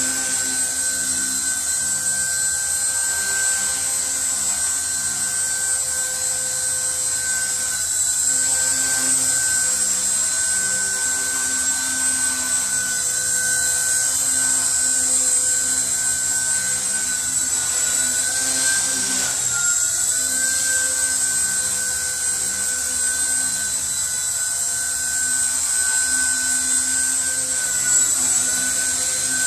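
WLtoys V922 six-channel micro RC helicopter in flight, its electric motors and spinning rotors giving a steady high-pitched whine. The pitch dips briefly about two-thirds of the way through.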